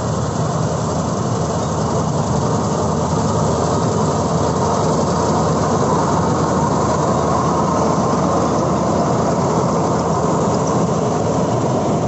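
Kartar 4000 combine harvester running steadily while cutting wheat: its engine hum and the even mechanical clatter of the cutter header and threshing drum.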